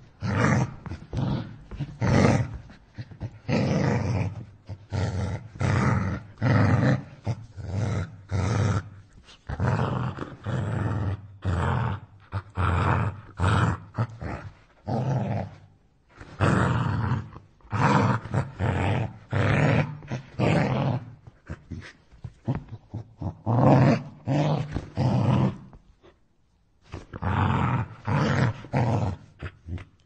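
A dog snarling and growling aggressively in rapid, irregular bursts, like an attacking dog, with a brief pause near the end.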